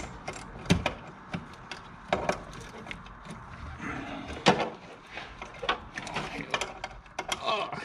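Hand ratchet clicking in short, irregular strokes, mixed with scattered metal tool clinks, as a fastener is worked loose.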